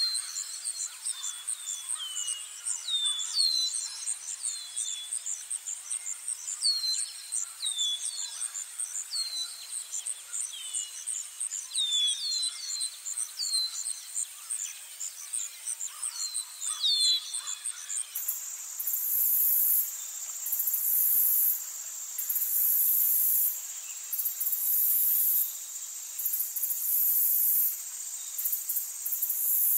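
Outdoor insect chorus: a fast, even, high-pitched pulsing trill with birds giving short, falling chirps again and again. About eighteen seconds in it changes abruptly to loud on-and-off bursts of very high insect buzzing over a steady high whine.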